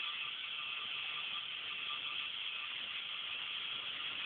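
Motorised chain lift of a K'NEX plastic roller coaster model running steadily, with a thin steady whine.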